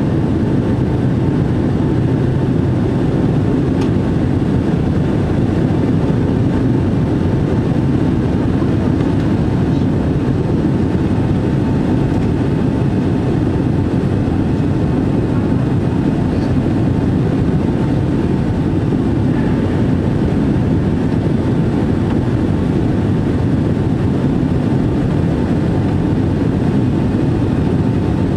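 Steady cabin roar of a Boeing 767-300 in flight, heard from a window seat over the wing: engine and airflow noise with a faint high whine held at one pitch.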